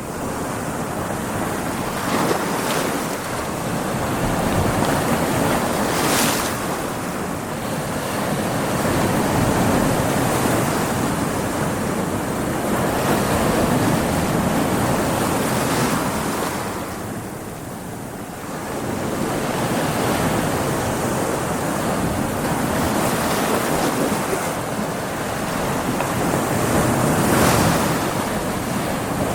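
Stormy sea: big ocean waves breaking and crashing on a beach in a continuous rush of surf that swells and ebbs every few seconds, with wind on the microphone.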